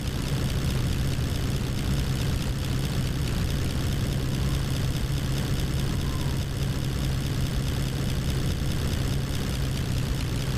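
Heavy engine running steadily at a loud, even level, with a deep low hum under broad noise. It starts and cuts off abruptly, as an edited-in sound effect.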